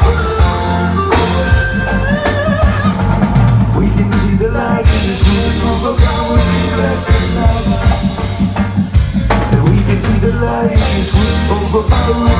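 Live reggae band playing an instrumental passage with no lead vocal: drum kit and bass keep a steady beat under melodic lead lines.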